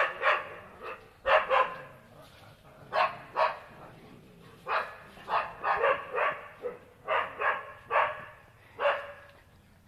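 Dogs barking at a cow in short, sharp barks, about twenty of them in quick clusters, with brief lulls about two and four seconds in.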